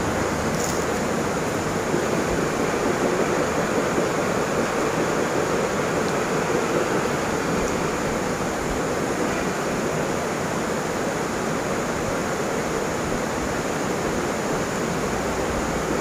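A waterfall rushing steadily, an unbroken wash of water noise.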